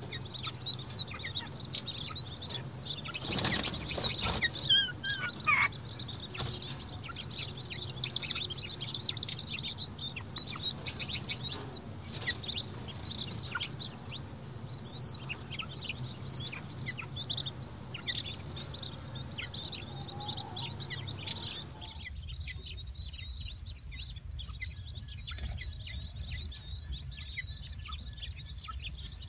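Four-day-old king quail chicks peeping: a steady run of short, high peeps, each rising and falling in pitch, with one longer falling call about four seconds in. A brief scuffle of handling noise comes about three seconds in, and after about 22 s the peeping goes on over a quieter background.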